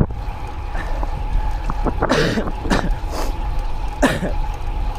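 A man coughing and clearing his throat in several short bursts from about two seconds in, his throat irritated by a bug he swallowed while riding, over steady wind and road noise on the bike.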